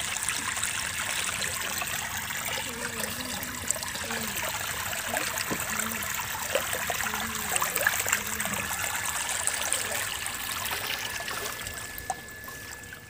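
Water trickling and splashing steadily in a goldfish farm tank. It drops away about twelve seconds in.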